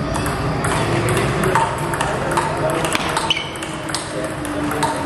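Table tennis rally: the plastic ball clicking sharply off the paddles and the table, an uneven string of quick ticks over the background noise of a busy hall.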